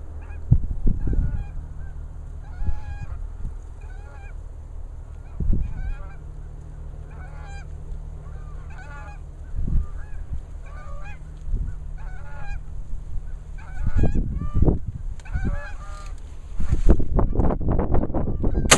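Geese honking in a steady run of calls, one every half second or so. Bursts of low rumble come and go beneath them, loudest from near the end.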